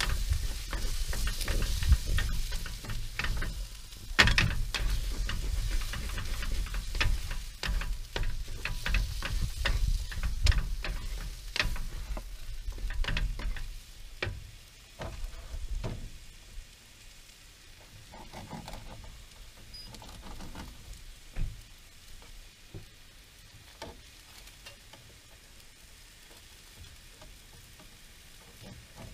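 Wooden spatula scraping and knocking against a nonstick frying pan as diced food is stirred and sizzles on a portable camp stove. About halfway through the stirring stops and only a quieter sizzle with the odd tick goes on.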